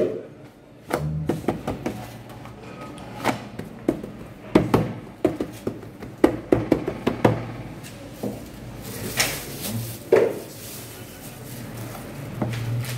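Hands pressing and slapping pide dough flat on a floured wooden bench: irregular soft thumps and taps. A rustle and scrape follow near the end, as a gloved hand takes filling from a steel tray.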